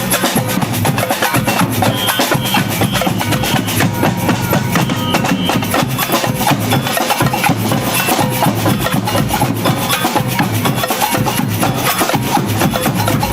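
Samba band drumming: many drums and a wood-block-like percussion instrument playing a dense, steady rhythm without a break.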